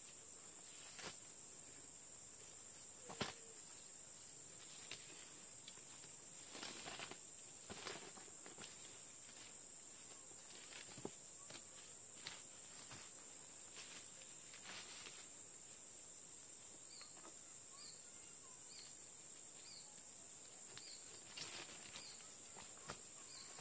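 Faint forest ambience: a steady high-pitched insect drone, with occasional rustles and steps on leaf litter and a few faint high chirps near the end.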